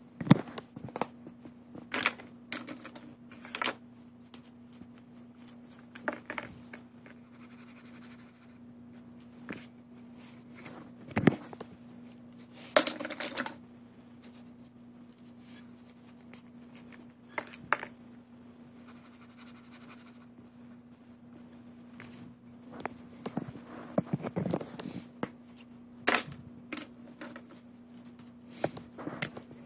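Felt-tip markers being picked up, handled and used on paper: irregular clicks and taps, a few of them sharp, with scratchy strokes of a marker tip on paper, over a faint steady low hum.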